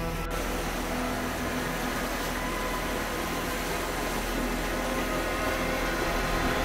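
Steady wind and sea-surf noise, with faint sustained tones underneath.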